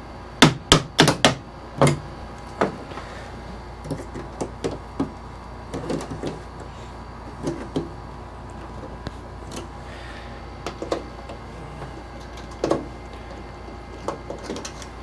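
Wooden shipping crate being taken apart by hand: a quick run of about six sharp knocks in the first two seconds, then scattered lighter knocks and clatter of the boards.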